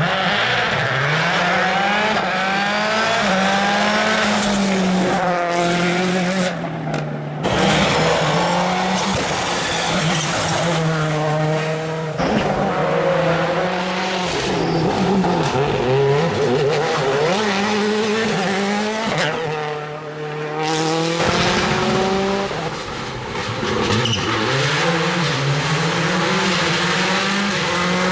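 World Rally Car engines, turbocharged four-cylinders, revving hard with the pitch repeatedly climbing and dropping through gear changes and lifts of the throttle as the cars pass. The sound changes abruptly about seven seconds in and again around twenty seconds.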